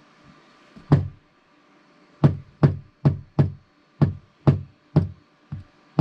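Fingertip taps on the top of an ESHLDTY RGB power strip tower, the touch control that switches its light modes: about ten short knocks, one about a second in, then a quick run of nine at roughly two a second.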